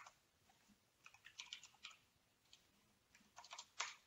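Faint typing on a computer keyboard: a single click at the start, then two quick runs of keystrokes, about a second in and again near the end.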